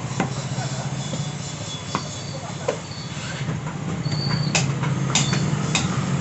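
Heavy cleaver chopping goat meat on a wooden tree-stump block: sharp knocks, a few spread out and then several in quick succession in the second half. A steady low rumble runs underneath.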